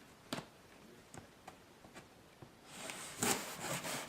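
A few faint clicks and taps, then about three seconds in an unsharpened diver's knife starts sawing back and forth in quick rasping strokes, several a second.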